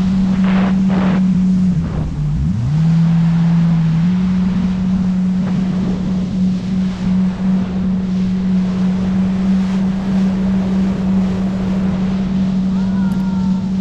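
Jet ski engine running at speed, a steady drone over rushing water and wind on the microphone. About two seconds in the revs drop sharply, then climb back up over the next two seconds.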